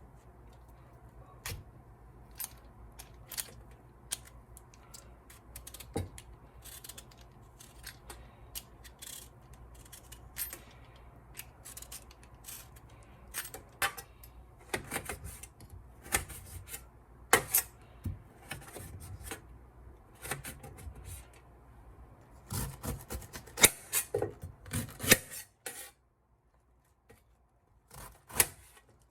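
Kitchen food-preparation sounds: irregular clicks and knocks of utensils being handled, with a quick run of knocks in the last third, over a low hum that stops near the end.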